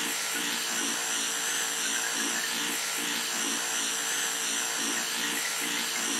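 A small electric motor running with a steady buzzing hum and a light regular pulsing.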